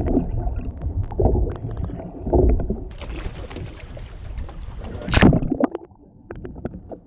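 Wind and water noise aboard a small boat at sea: uneven low rumbling and sloshing, with a rush of hiss from about three seconds in and a louder short burst about five seconds in.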